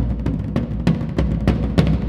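Several players striking a shared set of drums, a timpani and small tom-toms, with drumsticks in a fast, driving rhythm of sharp strokes over low drum tones.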